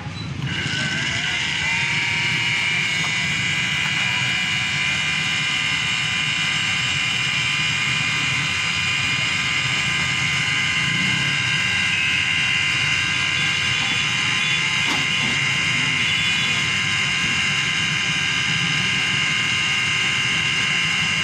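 Electric blender motor blending a full jar of banana milkshake. It starts about half a second in, its whine rising over the first couple of seconds, then holds a steady high whine.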